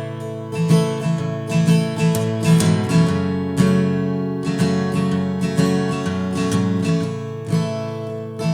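Acoustic guitar strummed in a steady rhythm, playing an instrumental passage between sung lines of a folk-country song.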